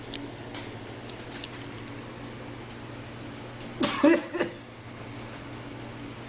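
A small Chihuahua-type dog gives a short, loud yip about four seconds in, over a steady low hum.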